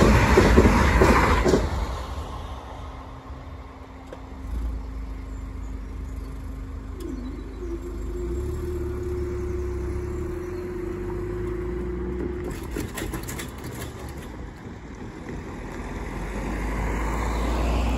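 A passing electric multiple-unit train's rumble fading out in the first two seconds, then a steady hum from the level-crossing barrier mechanism as the barrier booms lift, its pitch dipping and stepping up about seven seconds in and stopping with a few clicks. A car engine grows louder near the end as it drives over the crossing.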